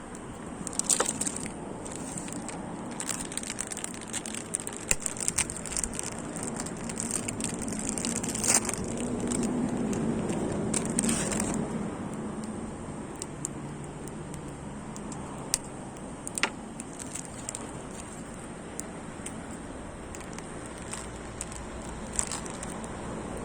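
Wood fire crackling in a stainless-steel shichirin brazier: irregular sharp pops and snaps over a steady background hiss.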